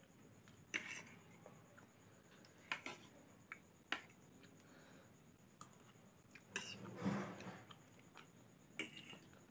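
Metal fork and spoon clinking and scraping against a plate of Maggi instant noodles: short sharp clicks at irregular intervals, with one longer scrape past the middle.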